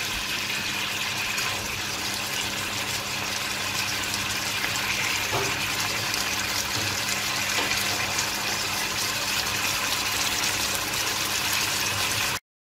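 Hilsa and green banana curry sizzling and bubbling in a frying pan, a steady crackling hiss that cuts off suddenly near the end.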